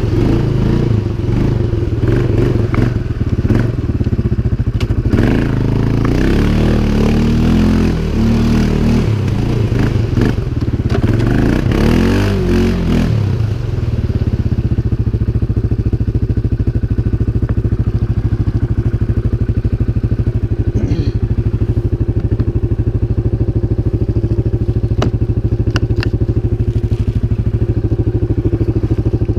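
CFMoto 500 ATV's single-cylinder engine revving up and down with shifting pitch, then settling to a steady idle about halfway through, with a few sharp clicks near the end.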